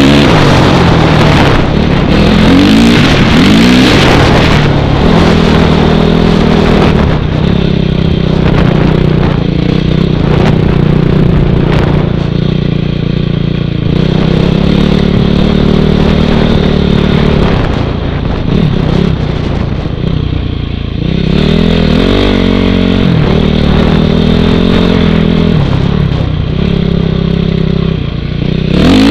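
Honda CRF450R single-cylinder four-stroke dirt bike engine with an FMF full exhaust system, running under throttle while being ridden. The revs hold steady for stretches, then shift and rise again several times, with wind noise on the microphone.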